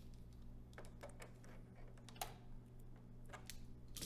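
Low steady hum of the AKAI M9 reel-to-reel deck's motor running, with irregular light clicks and ticks from its exposed transport mechanism.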